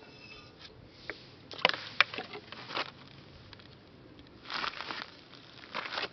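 Scattered crunching and scraping noises in two clusters, one about a second and a half in and one about four and a half seconds in, as hands take hold of a freshly thrown clay bottle and lift it off the pottery wheel.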